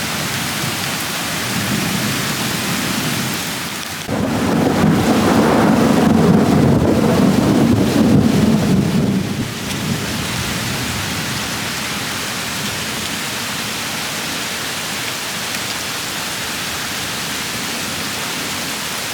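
Heavy rain falling steadily. About four seconds in a thunderclap breaks in suddenly and rumbles low and loud for about five seconds, then dies away under the rain.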